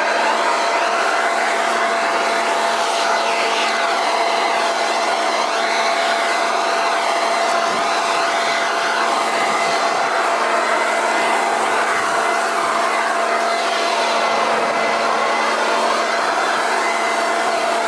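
Toro Ultra Blower/Vac 51436 corded electric leaf blower running steadily in blowing mode: a loud, even rush of air with a steady motor whine.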